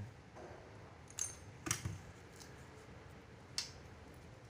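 Scissors and pliers clicking and snipping on the wire leads of a diffusion pump's heating rod. There are four short sharp clicks spread across the few seconds, and the one about a second in has a brief metallic ring.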